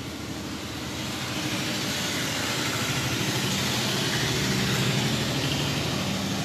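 A motor vehicle's engine running, with a steady hum that grows louder over the first few seconds and eases slightly near the end.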